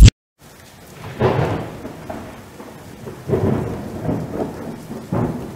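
A short loud burst cuts off the music at the very start. After a moment's silence comes steady rain with low rolling thunder swelling about every two seconds.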